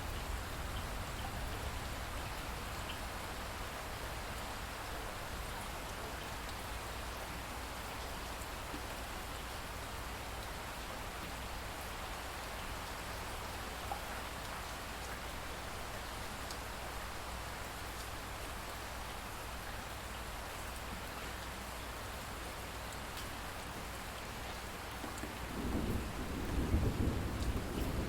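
Steady heavy rain falling, an even hiss, with a low rumble of thunder rolling in near the end.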